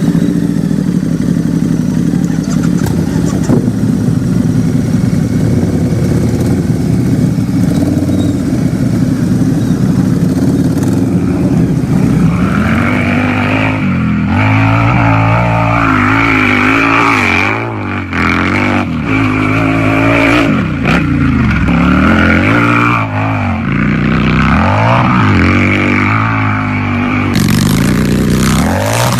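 Harley-Davidson motorcycle's V-twin engine idling steadily, then from about halfway through revved up and down over and over.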